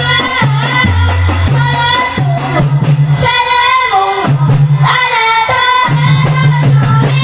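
Rebana ensemble playing a sholawat: girls' voices singing the melody through a PA, over genjring frame drums with jingles, ketiplak hand drums and the deep thud of the jidor bass drum in a steady repeating pattern.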